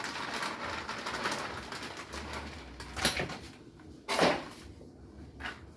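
Kitchen handling noise while shredded cheese is spread over a pan of macaroni: a rustling for the first few seconds, then a sharp click, and a louder knock a little after four seconds in.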